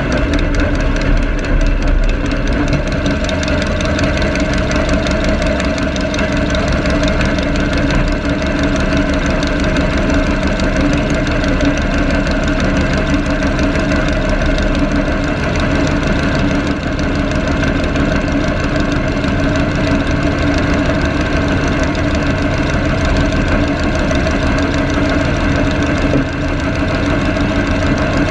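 Garden tractor's small engine idling steadily, heard close up, with an even pitch that holds throughout.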